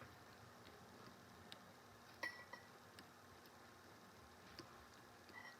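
Near silence broken by about six faint, light ticks and clicks of small tools touching a circuit board while solder joints are reflowed; the loudest comes about two seconds in with a brief metallic ring.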